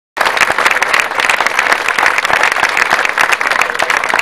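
A crowd applauding, with dense, loud clapping that starts suddenly right after a brief silence.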